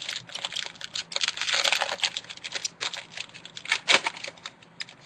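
Trading card pack and cards being handled and opened: a dense run of crinkling, clicking and rustling, with a denser tearing-like stretch about one and a half seconds in.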